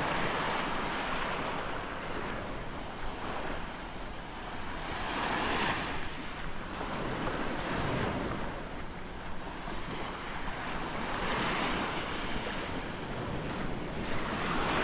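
Small Gulf of Mexico waves breaking and washing up the beach, the hush swelling and fading every few seconds, with wind buffeting the microphone.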